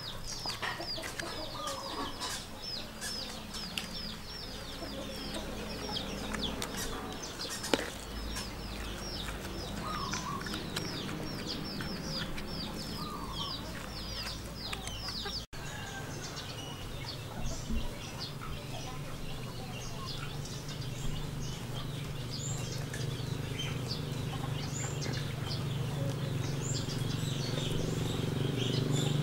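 Farmyard chickens: a fast string of high, falling cheeps repeating through the first half, with occasional clucks. After a cut a low steady hum rises and grows louder toward the end.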